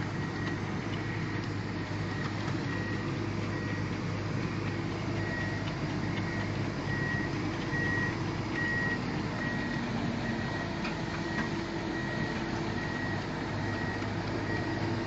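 Heavy excavator's diesel engine running steadily, with its travel alarm giving short high beeps, faint at first and then about once a second from around five seconds in, a sign that the tracks are moving.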